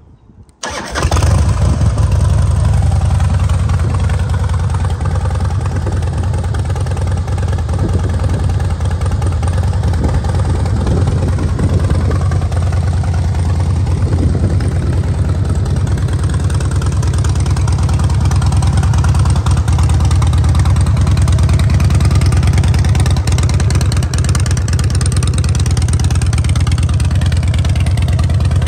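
2006 Harley-Davidson Night Train's fuel-injected 1450 cc V-twin, fitted with a Vance & Hines exhaust, started up: it catches about a second in and then idles steadily with a deep, loud rumble.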